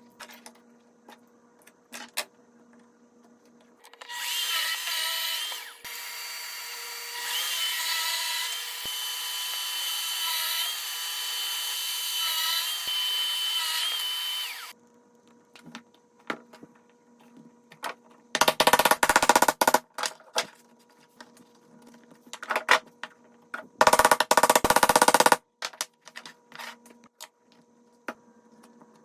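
A power tool working wood. Its motor whines steadily for about ten seconds, changing pitch slightly, then two short, loud bursts of a fast rattling cut follow, with small clicks of the workpiece being handled in between.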